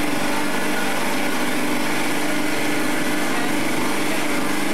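Outboard motor on a small open boat running steadily under way, a constant drone at an unchanging pitch.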